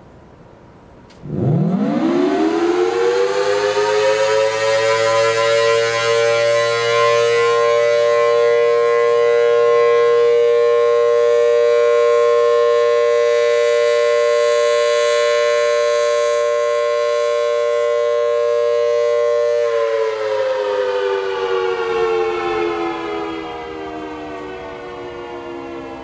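Federal Signal Thunderbolt 1000T siren with a 4/5-port rotor sounding its slow attack signal. About a second in it winds up in pitch to a steady two-tone chord, holds it for about fourteen seconds, then starts to wind down near the end.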